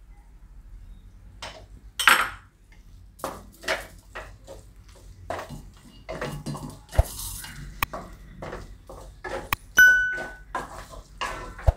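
Spatula scraping and knocking against a metal kadai as grated fresh turmeric is stirred and fried in ghee: irregular scrapes and clinks. There is one brief ringing ping about ten seconds in.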